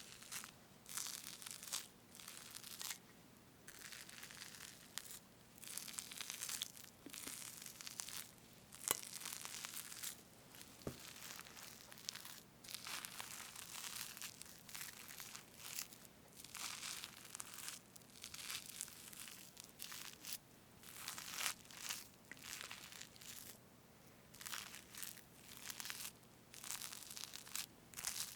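Whipped cream on a strawberry cake being cut and parted close to the microphone: a run of short, irregular, soft hissing strokes.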